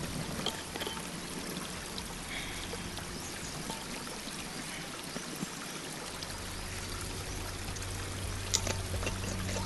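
Steady rush of flowing stream water, with a few faint clicks as a stainless steel vacuum flask's cup and stopper are unscrewed. A low steady hum comes in about six seconds in.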